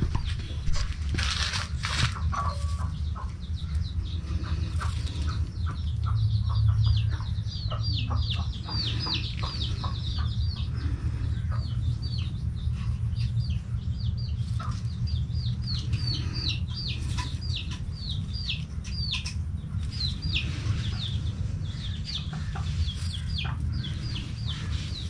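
Chickens clucking, with a continual run of short, high, falling peeps several times a second, over a steady low hum and a few light taps.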